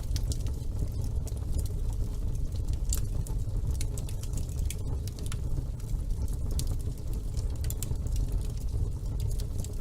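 Wood fire burning in a fireplace: a steady low rumble of flame with frequent, irregular sharp crackles and pops.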